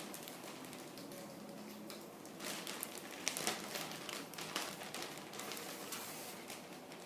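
Rustling and crinkling as a football jersey is handled and unfolded. A cluster of sharper crackles comes in the middle.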